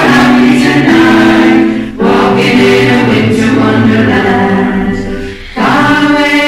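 A small group of men and women singing a Christmas carol together in long held notes, with an electronic keyboard accompanying. The singing pauses briefly between phrases about two seconds in and again near the end.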